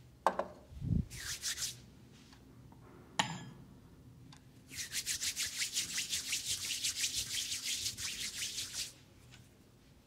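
Hands rubbed briskly together for about four seconds in a fast, even back-and-forth of skin on skin, several strokes a second. Before it come a few light knocks and a clink as things are handled.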